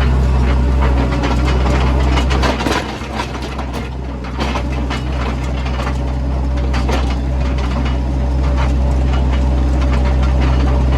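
Heavy machine's engine running steadily with a deep hum, with scattered knocks and rattles over it; it eases off slightly around three seconds in, then holds steady again.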